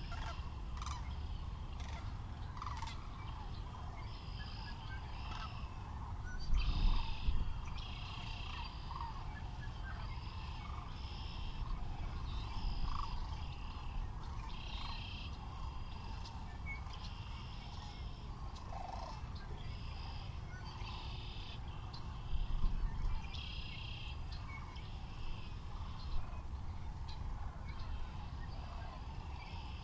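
Outdoor soundscape on the Central Platte River: a steady low rumble with a continuous chorus of distant animal calls and many short, repeated high trilling calls overlapping. Twice, at about 7 and 23 seconds in, the low rumble swells louder for a second or so.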